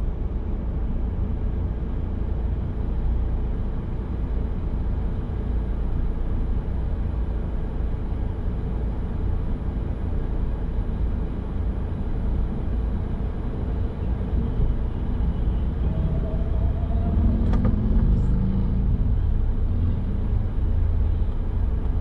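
Steady low rumble of a car driving on the road, with a single sharp click near the end.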